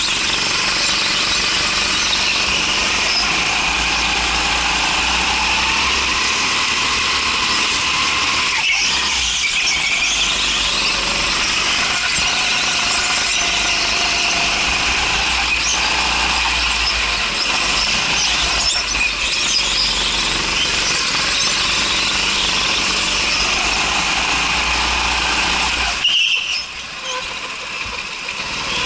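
Go-kart running at speed around an indoor track, heard from onboard: a steady, loud, high-pitched squeal and whine over the running kart. About 26 seconds in there is a brief sharper squeal, and the sound then drops in level as the kart slows.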